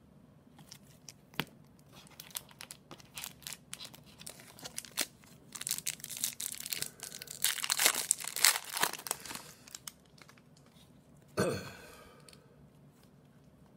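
Light clicks and rustles of trading cards being handled, then an Upper Deck hockey card pack's wrapper being torn open by hand, crinkling and crackling for a few seconds in the middle, loudest just past halfway.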